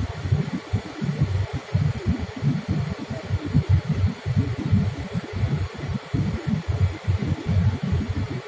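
Boeing 787-8 Dreamliner in-flight cabin noise: a steady hiss with an uneven low rumble pulsing underneath.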